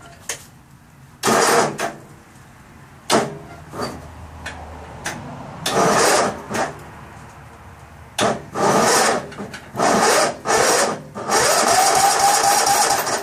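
Starter motor of a Sears ST/12 garden tractor cranking the engine in repeated short bursts that grow longer, the last lasting nearly two seconds with a whine, without the engine catching: the long-idle engine has no fuel in it.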